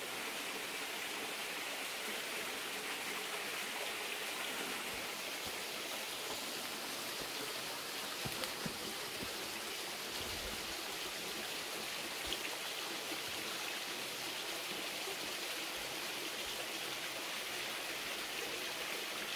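Steady rushing of a flowing stream, with a few faint knocks around the middle.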